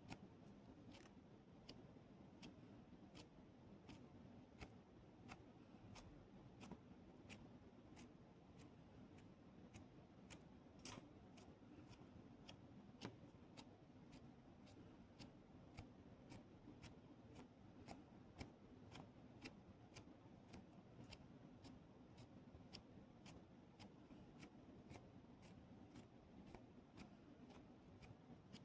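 Faint, steady clicking, about two clicks a second, over a low hum.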